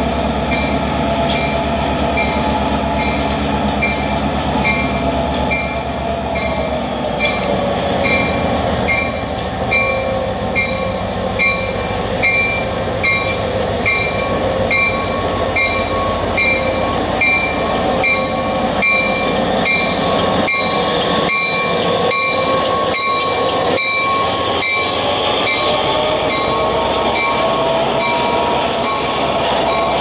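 NYS&W diesel freight train rolling past at low speed in street running: the locomotive's engine drone with steady pitched tones that sag and recover as it goes by. A crossing-signal bell dings evenly about one and a half times a second. From about eight seconds in, the wheels of passing freight cars click over rail joints.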